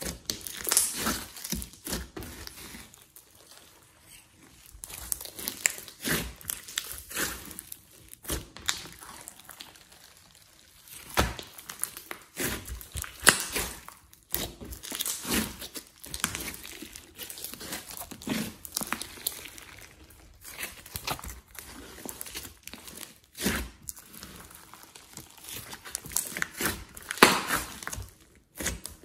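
Hands squishing, stretching and pressing a large mass of glossy slime mixed with clay and glitter, making irregular sticky clicks, crackles and pops in bunches.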